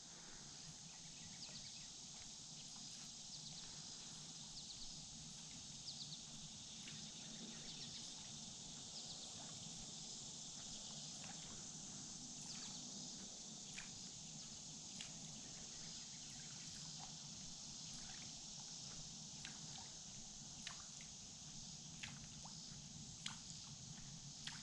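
Quiet ambience around a kayak on a lake: a faint steady high hiss with scattered soft ticks and taps, and small water sounds against the hull.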